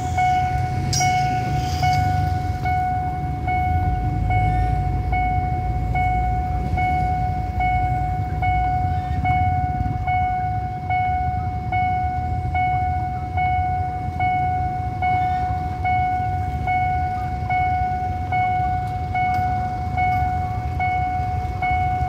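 Railway level crossing warning bell ringing continuously, one pitched electronic ding repeating a little faster than once a second: the signal that a train is approaching and the barriers are down. Idling motorcycle and car engines rumble underneath.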